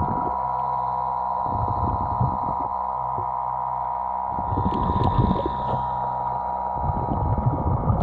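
Muffled underwater sound picked up through a waterproof camera housing: a steady hum with irregular low knocks, rumbles and crackles from the diver's movements against the rocks.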